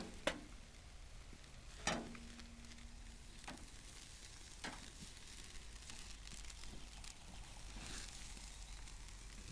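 Neck meat sizzling faintly on a charcoal grill's wire grate, with a few sharp clicks of metal tongs against the grate as the pieces are turned.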